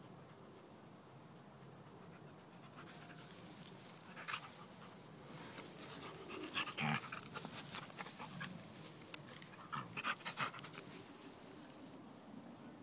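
A pit bull–amstaff dog panting, then rolling on its back in the grass, with rustling and scattered sharp clicks through the middle and a few louder bursts before it settles.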